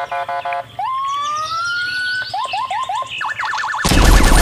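Electronic siren-style sound effects: a quick run of beeps, a long rising whistle, short chirps, then a fast warbling siren. Loud machine-gun fire cuts in near the end.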